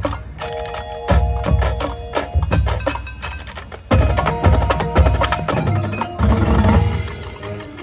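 High school marching band playing a percussion-heavy passage of its field show: sharp struck hits and heavy low drum strokes under ringing pitched mallet-instrument notes, growing louder about four seconds in.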